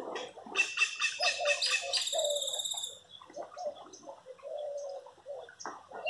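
Birds calling in the trees: a fast run of repeated chirps, then a buzzy trill about two seconds in, followed by scattered shorter calls.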